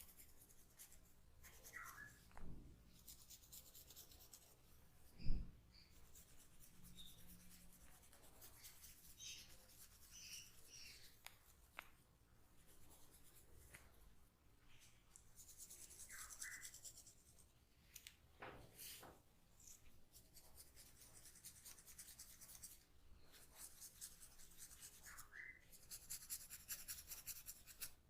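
A comb drawn through hair and over the scalp in repeated strokes, its teeth giving a fine rapid ticking, with a single short thump about five seconds in.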